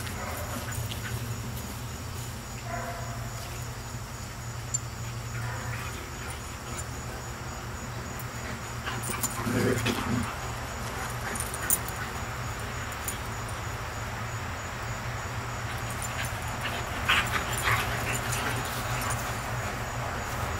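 A dog vocalizing briefly a few times, several seconds apart, over a steady low hum.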